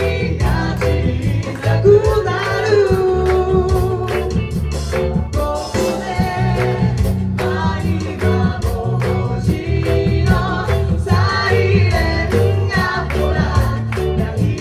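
Many voices singing a pop-rock song together in unison over a live band, with guitar, bass and drums keeping a steady beat.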